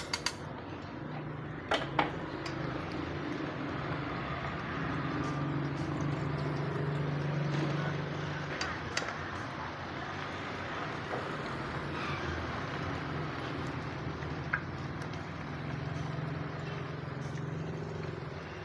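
Battered tempe slices deep-frying in hot oil in a small pan, a steady sizzle, with a few sharp clicks of a metal slotted spoon and tongs against the pan. A low hum swells up twice under the sizzle.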